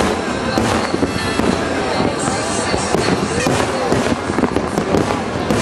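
Aerial firework shells bursting and crackling in a dense, continuous barrage, many pops in quick succession.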